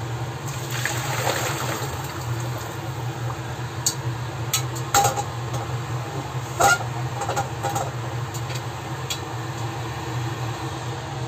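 Kitchen sounds: a steady low mechanical hum, a short rush of water about a second in, and several light clinks of kitchenware in the middle.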